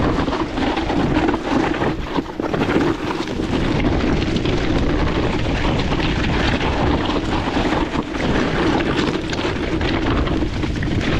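Electric mountain bike descending a steep dirt trail, heard through a GoPro: a constant rumble of wind on the microphone and knobby tyres over dirt and stones, with many small knocks and rattles from the bike.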